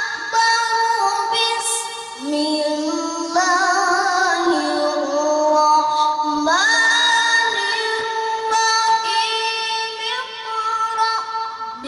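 A child qari reciting the Quran in melodic tilawah style into a microphone, drawing out long notes with wavering ornaments. About halfway through the voice glides up into a high held note.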